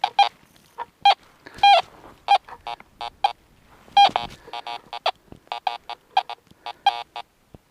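Fisher F19 metal detector giving short, broken chirps and blips as its coil sweeps over a small metal garter clip lying on the surface, with no solid, repeatable target tone: the machine won't hit the clip.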